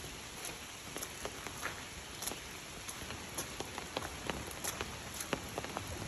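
Steady rain, an even hiss with heavy drops tapping sharply and irregularly close by.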